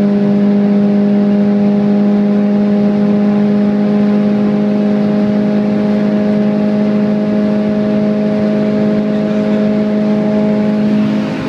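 Car engine held at steady high revs: one loud, unchanging note with overtones that does not rise or fall.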